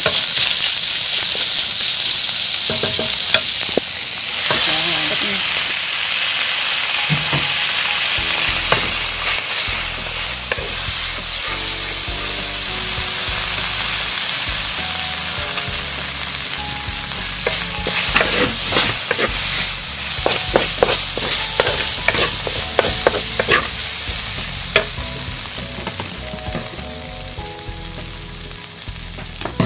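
Beef strips sizzling in butter and sauce in a metal wok while being stirred with a wooden spatula. The sizzle eases once instant noodles are in the pan, and the spatula knocks and scrapes against the wok as the noodles are tossed, with one sharp knock near the end.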